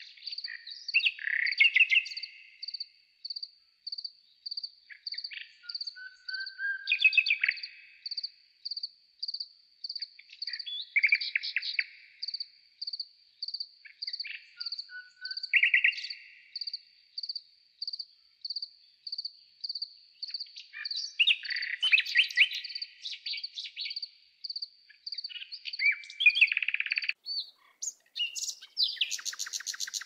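Garden birds chirping and singing in short phrases every few seconds over a steady high-pitched chirp that repeats about twice a second. Near the end comes a fast, loud trill.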